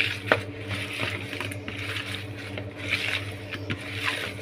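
Hands squishing and rubbing small whole fish in a wet spice marinade against a plastic bowl, with irregular squelching and scraping and a sharp click about a third of a second in. A steady low hum runs underneath.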